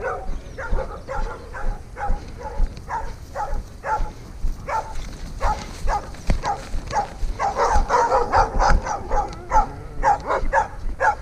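Dogs barking in quick repeated barks throughout, busiest about two thirds of the way in.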